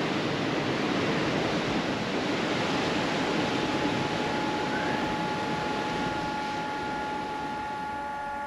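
Rough surf breaking on rocks, a steady rush of waves that slowly fades. From about three seconds in, a few steady held tones come in beneath it.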